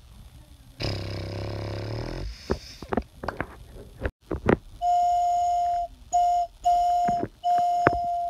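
A low tone with many overtones for about a second and a half, then a string of sharp clicks and knocks, then a whistle blown four times on one steady pitch: a long blast, a short one and two longer ones.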